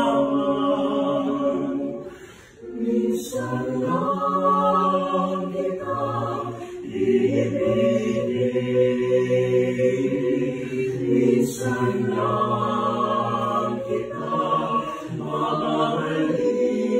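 A small choir singing a cappella in close harmony, holding chords in long phrases, with a short breath pause about two seconds in.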